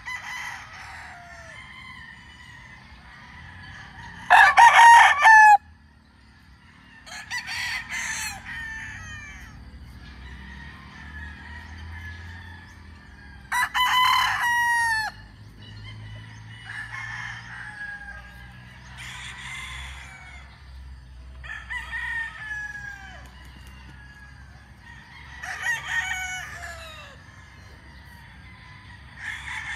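Gamefowl roosters crowing one after another. Two loud, close crows come about four and fourteen seconds in, and several fainter crows from birds farther off fill the rest.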